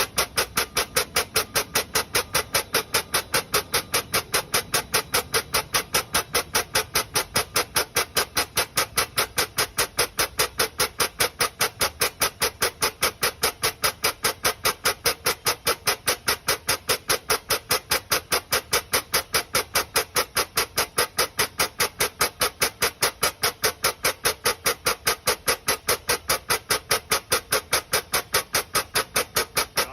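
Air-driven pump of a 100-ton aircraft line jack stroking in a fast, even rhythm, about three strokes a second, as the jack lifts a Boeing 747 off the ground.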